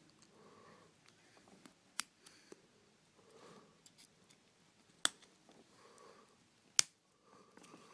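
Plastic clips of a smartphone's back housing snapping loose as it is pried off by hand: three sharp clicks, the last the loudest, with soft scraping and handling of the plastic between them.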